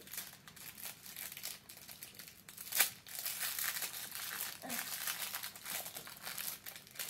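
Thin clear plastic wrapper crinkling and rustling as it is handled to unwrap a small squishy toy, with one sharper snap about three seconds in.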